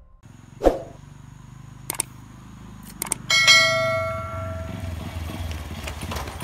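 Subscribe-button animation sound effect: a thump, a couple of mouse clicks, then a bright bell ding that rings out for about a second and a half. Underneath, a small motorcycle engine idles steadily, growing more prominent toward the end.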